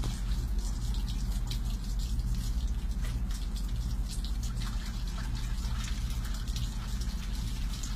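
Rain falling, with many scattered drops ticking close to the microphone over a steady low rumble.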